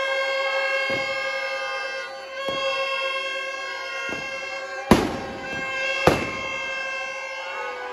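Firecrackers in a Ravana effigy going off: a few light pops, then two loud bangs about a second apart around the middle. Music of steady held notes plays throughout.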